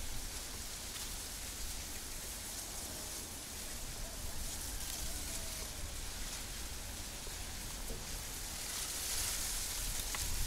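Steady outdoor hiss, with a low wind rumble on the microphone underneath; the hiss grows slightly near the end.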